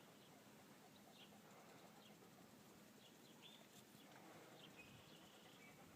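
Faint bird chirps: a few short high chirps spread through, and a longer held note about four and a half seconds in, over a low steady background hiss.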